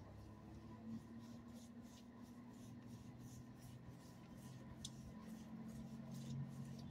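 Gloved hand rubbing a short-coated dog's back: a faint, repeated scratchy rustle of fabric on fur, over a low steady hum.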